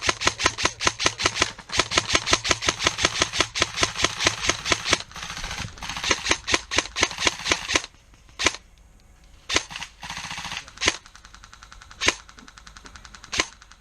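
Airsoft rifles firing on full auto, a long rapid string at about nine shots a second, as suppressing fire. The fire thins into shorter, fainter bursts and then a few single shots.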